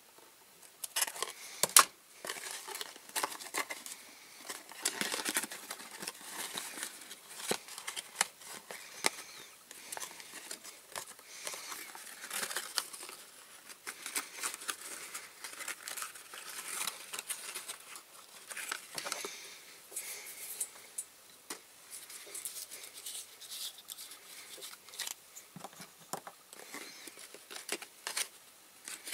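Close-up handling and crafting noises: rustling and crinkling, with many small sharp clicks and scrapes. The clicks are strongest about a second or two in.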